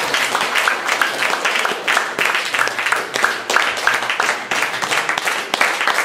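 Audience applauding: dense, steady clapping from a seated crowd.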